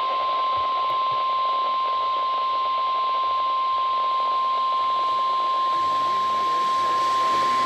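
NOAA Weather Radio warning alarm tone: one steady, unwavering beep at about 1050 Hz held over a hiss of radio static. It is the signal that a weather warning broadcast is about to follow.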